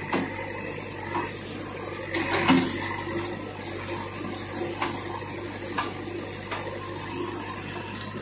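JCB backhoe loader's engine running steadily while its arm works a tree out of the ground, with several knocks and cracks; the loudest comes about two and a half seconds in.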